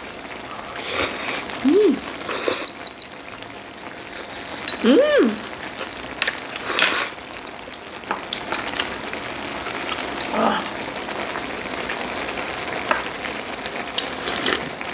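Mukbang eating sounds: noodles being slurped and chopsticks and a spoon clinking, over the steady hiss of spicy stew simmering in an electric hot pot. There are a couple of short hummed "mm" sounds and a brief double high tone about two and a half seconds in.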